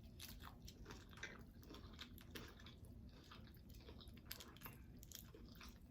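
Faint chewing of a mouthful of taco, soft scattered wet mouth clicks and crunches.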